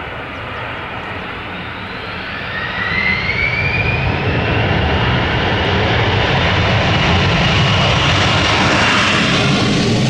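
Boeing 767-200ER twin-jet engines growing louder as the airliner comes in low and passes close. A whine rises in pitch a few seconds in, and the engine noise stays loud through the second half.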